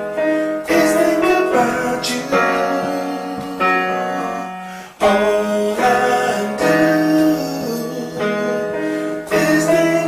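Piano played in held chords, a new chord struck every one to two seconds, the loudest coming in sharply about halfway through.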